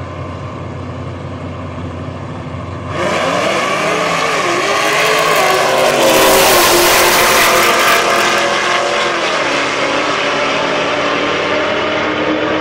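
Two drag-racing cars, a Chevrolet Camaro and a Dodge, idle at the starting line. About three seconds in they launch at full throttle, the engine note rising and dropping through the gear changes. The sound is loudest as they pass, about six seconds in, then slowly fades as they run down the quarter mile.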